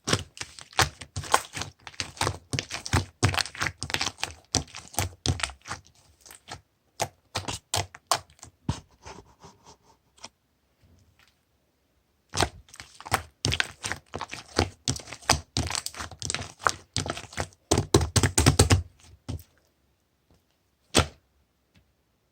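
Gold-pearl slime being squished and pressed by hand, making rapid sticky clicks and pops. The clicking comes in two long runs with a pause of about two seconds between them, then one last click near the end.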